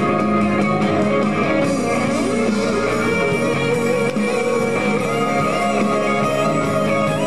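Live rock band playing, led by an electric guitar whose melody line bends and wavers in pitch over sustained chords.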